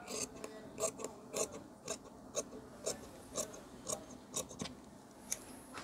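Large tailor's shears with red handles snipping through blouse fabric: a quiet, regular series of short snips, about two a second.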